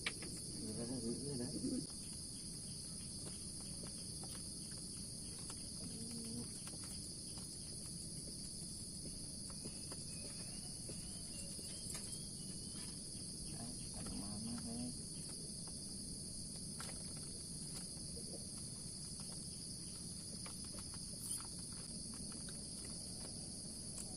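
Steady, high-pitched chorus of insects chirring without a break, over a low background rumble and a few faint distant voices.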